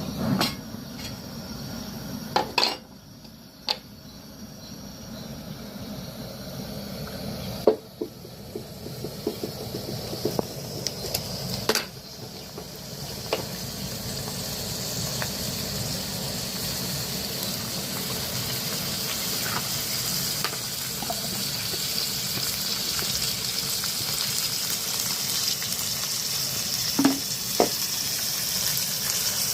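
Food sizzling in a frying pan, a steady hiss that grows stronger in the second half, with scattered clicks of a utensil against the pan and dishes.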